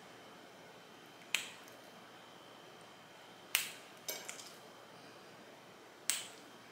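Zip tie tails being snipped off with side cutters. There is a sharp snap at each cut, four in all, about two seconds apart, and the third is followed by a light clatter.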